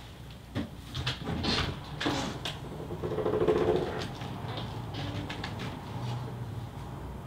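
Small knocks and rustles, then a cat meowing once, a drawn-out call about a second long, about three seconds in.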